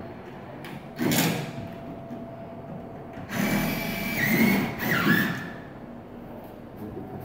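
Cordless drill-driver driving screws. There is a short burst about a second in, then a longer run of about two seconds whose motor whine steps down in pitch partway through.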